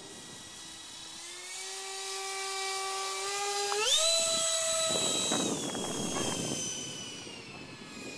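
Twin 65 mm E-flite electric ducted fans with brushless motors whining as the RC jet flies past. The whine climbs slowly, then jumps sharply higher and loudest about four seconds in as the throttle is opened on a low pass. It then slides lower and fades as the plane climbs away.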